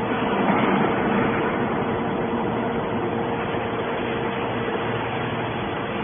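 Horizontal hydraulic metal baler's power unit running: a steady machine hum with a constant whine of unchanging pitch, a little louder in the first second or so.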